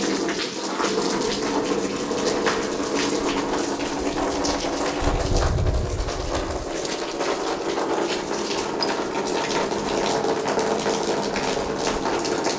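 A stream of mains tap water pouring steadily from a garden hose and water meter onto the wet floor of an empty lined pond, splashing as it lands.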